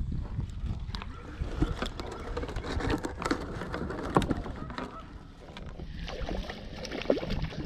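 Scattered knocks, clicks and rustles of a fish, measuring board and rod being handled against a plastic kayak hull.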